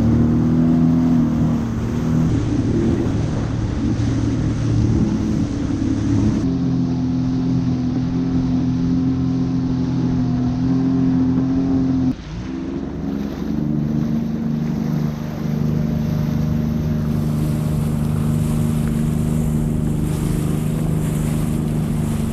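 Sea-Doo jet ski engine running steadily at cruising speed, with water and spray rushing past the hull and wind. About halfway the sound dips suddenly, then settles back to a steady, slightly lower engine note. The hiss of spray and wind grows toward the end.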